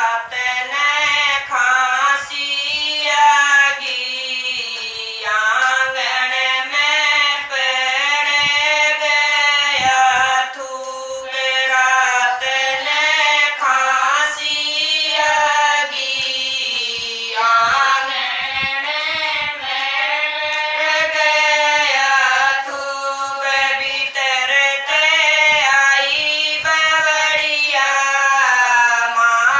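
Women singing a Haryanvi folk bhajan together, the melody running on without a break.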